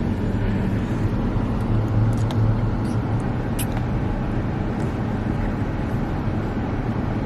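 Steady low rumble of a car's interior with the engine running, with a faint click about three and a half seconds in.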